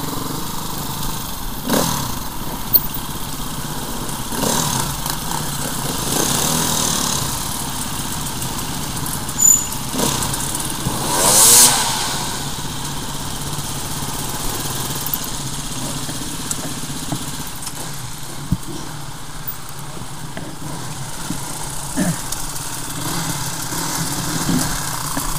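Enduro dirt bike engine running at low speed and idling as the bike rolls to a stop, with a brief louder rush of noise about eleven seconds in.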